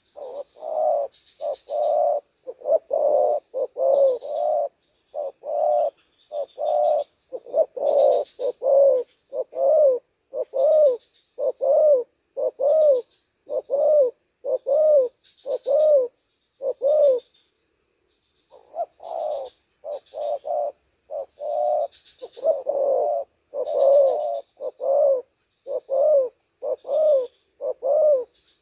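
Spotted doves cooing: a long run of repeated low coos, a little more than one a second, with a short break just past the middle.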